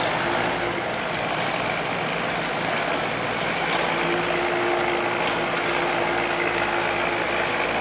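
Boat engine running steadily, with a thin whine that joins about four seconds in and stops near the end.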